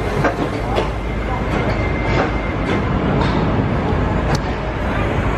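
Loud, steady outdoor rumble of theme-park ride machinery, with scattered clicks and knocks.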